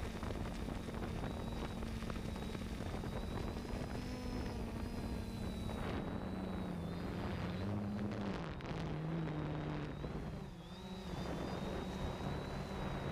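A 3DR Solo quadcopter's electric motors and propellers heard from on board: a steady hum with a thin high whine, its pitch stepping up and down several times in the middle as the motors change speed while the drone turns. Wind noise rumbles underneath.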